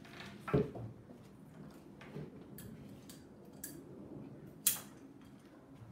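Ikebana scissors and flower stems being handled: a few light clicks and knocks, then one sharp snip of the scissors cutting a stem about three-quarters of the way through.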